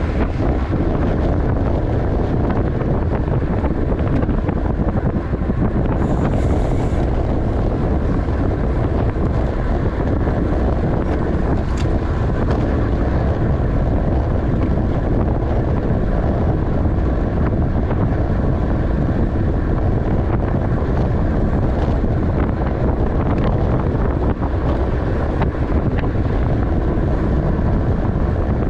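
Wind rushing over the microphone of a racing bicycle at speed, a steady, even noise with no breaks.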